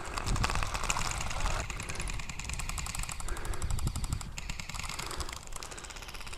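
Airsoft guns firing on full auto: rapid strings of sharp clicking shots, many a second, in bursts that break off and start again.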